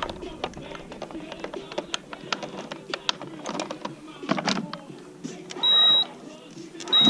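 Clicks, taps and rattles of hands working at the trolling motor's wiring and connectors, with a short high electronic beep near the end and another just as it ends.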